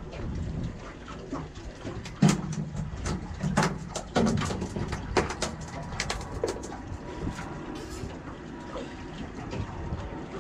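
A freshly landed slimy mackerel flapping and slapping against the boat's deck as it is grabbed and unhooked: a run of irregular knocks and thuds, loudest between about two and seven seconds in, over steady wind and water noise.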